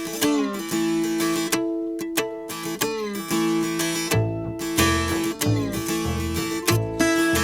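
Background music: acoustic guitar picking notes with slides, a bass line coming in about four seconds in.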